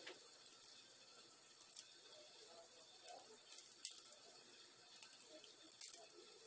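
Near silence with a few faint clicks and rustles from hands handling a crocheted flower and its bundle of thin craft-wire stems.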